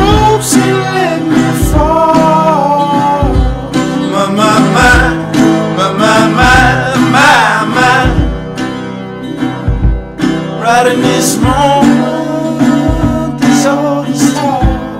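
A song with a singing voice over guitar accompaniment.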